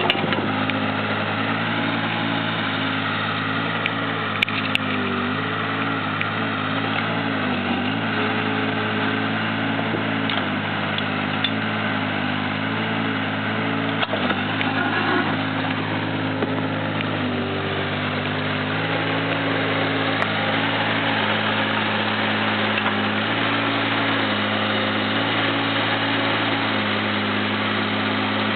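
Caterpillar 301.5 mini excavator's diesel engine running steadily while the arm and bucket are worked, its pitch stepping down and back up several times, with a few short knocks.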